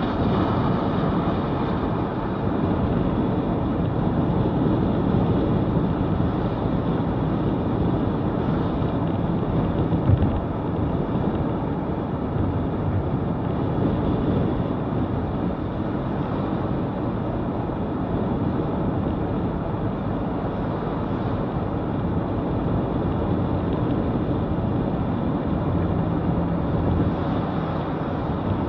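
Steady road and engine noise heard inside a moving vehicle's cabin, with a brief knock or bump about ten seconds in.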